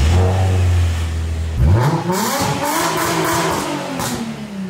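Nissan 350Z's 3.5-litre V6 running through a newly built stainless-steel exhaust: a steady idle, then one rev about a second and a half in that rises and falls back over about three seconds.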